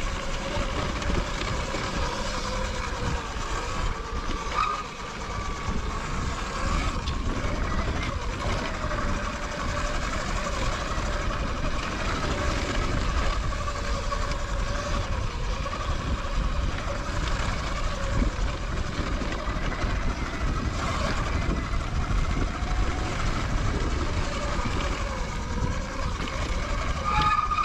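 Stock Sur-Ron electric dirt bike riding downhill on a dirt trail: its motor whine wavers up and down with speed over a steady low rumble of wind and rough ground.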